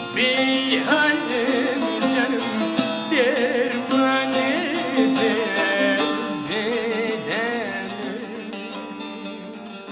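A young man sings a Kurdish folk song with wavering, ornamented lines, accompanied by a plucked long-necked saz. The music grows gradually softer near the end.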